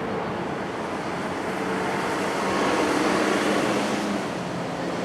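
Steady traffic and rail noise at a level crossing with a low hum, swelling about halfway through as a vehicle passes.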